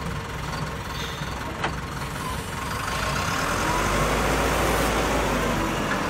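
Diesel engine of a wheel loader running as it drives with its bucket raised, growing louder about halfway through. There is one short click before the two-second mark.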